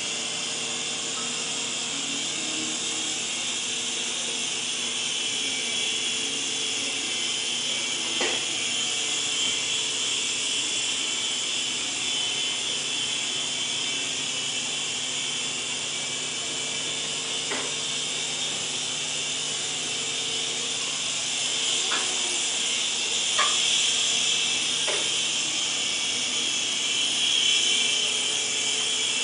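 Griffin Helo TC mini RC helicopter flying: its small electric motors and rotors make a steady high whirring hiss over a low hum, with a few faint clicks.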